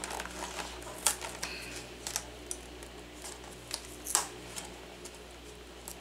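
Fingernails picking and scratching at the flap of a small cardboard retail box, making scattered light clicks and ticks, the sharpest about one, two and four seconds in.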